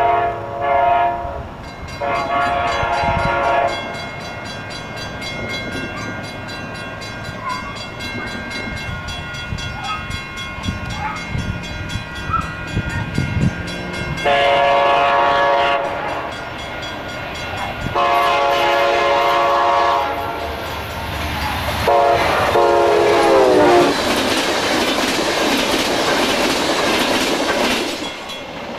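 Amtrak Genesis diesel locomotive's air horn sounding five blasts as the train approaches a grade crossing at speed. The last blast slides down in pitch as the locomotive passes. Then the passenger cars rush by with a loud, steady roar of wheels on rail.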